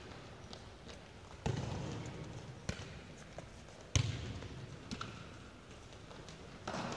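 A futsal ball being kicked and bouncing on a sports hall floor: a few sharp thuds, the loudest about four seconds in, each ringing on in the hall's echo.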